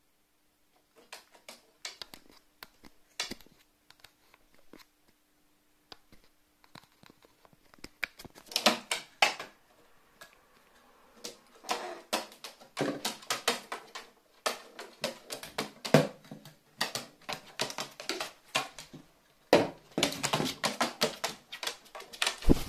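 A carrion crow handling a cardboard tube: irregular taps, knocks and scrapes of its beak and the tube on the cardboard and the wooden perch board. The taps are sparse at first, then come thick and louder from about eight seconds in, with a hard knock near the end.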